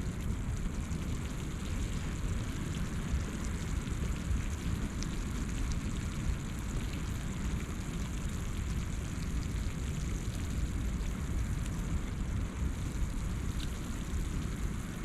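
Campfire burning with faint scattered crackles over a steady low rumble.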